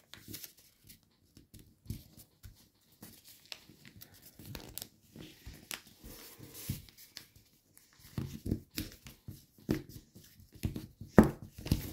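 A sheet of paper being folded and creased by hand: scattered soft crinkles and rustles, busier in the last few seconds, with one sharper crackle near the end.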